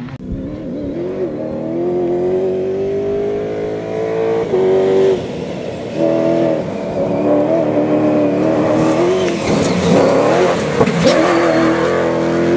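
Cross-country rally pickup's engine accelerating hard on a dirt stage, its pitch climbing through the gears with sharp drops at the shifts and growing louder as it comes close. A few sharp clicks sound near the end.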